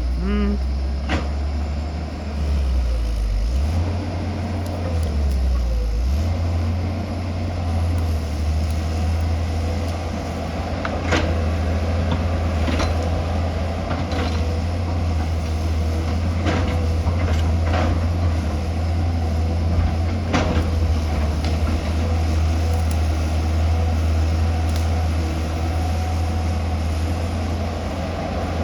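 Excavator's diesel engine running under load, a steady low drone, with scattered sharp knocks and clanks of the machine working.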